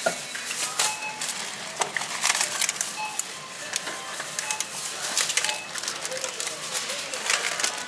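Thin plastic shopping bags crinkling and rustling in irregular bursts as groceries are packed, with short electronic beeps sounding every second or two in the background.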